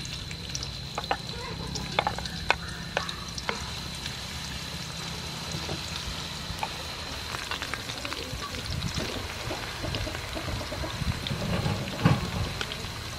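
Sliced onions deep-frying in hot soybean oil in a metal wok, a steady sizzle, stirred with a wooden spatula. A few sharp taps come in the first few seconds.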